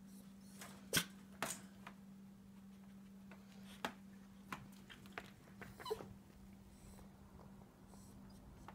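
Small dog in a wire crate making a few short, sharp sounds, about six in all, over a faint steady hum.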